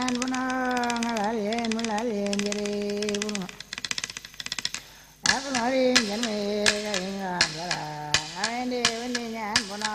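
A voice singing long held notes, with the pitch sliding between them, over rhythmic clicking or tapping. The singing breaks off about three and a half seconds in, leaving only the quick clicks, and comes back about five seconds in.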